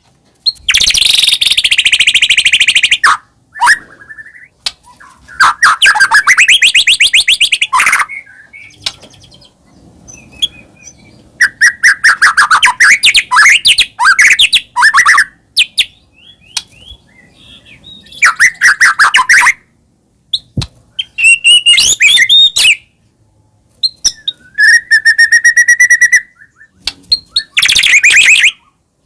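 White-rumped shama (murai batu) singing: loud phrases of rapid whistles and trills, each a few seconds long, with short pauses between. One phrase late on holds a steady whistle under a fast run of notes.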